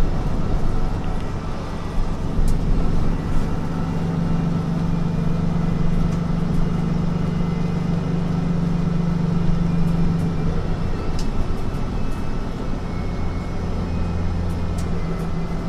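Mercedes-Benz Citaro C2 city bus's diesel engine running, a steady low hum whose pitch shifts a couple of times, with a few faint clicks.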